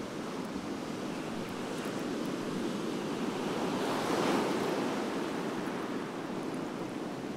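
Surf breaking on a beach: a steady wash of waves that swells to its loudest about four seconds in.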